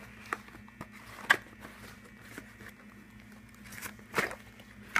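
Cardboard phone packaging being handled and opened, with its orange sleeve sliding off the white inner box: scattered clicks and scrapes, a sharp click about a second in, and a burst of cardboard rustling and scraping near the end.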